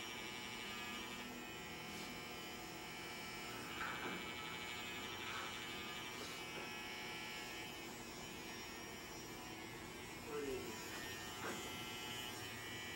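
Electric hair trimmer running with a steady buzz while it cuts a client's hairline, shaping the line-up of a taper cut.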